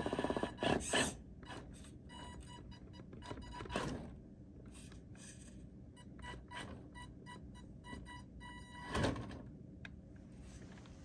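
Carisma SCA-1E RC rock crawler's electric motor whining in short pulses, about three a second, as it inches over rocks, with a few knocks of tyres and chassis against the stone, the loudest about nine seconds in.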